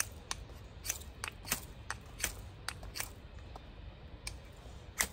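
Short scrapes of a knife blade drawn along a ferro rod, about a dozen strokes at two to three a second. The strokes are scraping off the rod's protective coating before it throws sparks.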